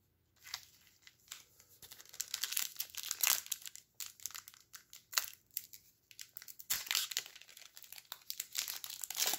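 Trading card pack wrapper being torn open and crinkled by hand: irregular crackles with short lulls, thickening into a dense crinkle about seven seconds in.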